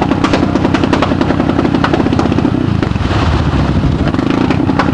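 Arctic Cat ATV engine running hard as the quad churns through deep mud, with a rapid clatter over the first couple of seconds; the revs drop a little under three seconds in and rise again near the end.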